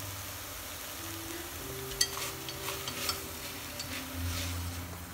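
Beef and enoki mushrooms sizzling in a stainless steel pot as chopsticks stir them. From about two seconds in, the chopsticks click sharply against the pot several times.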